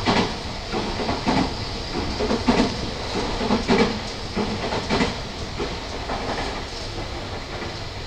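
Tobu 50000 series electric train running, heard from inside the carriage: a steady rumble and hiss with irregular sharp wheel clacks over the track, most of them in the first five seconds.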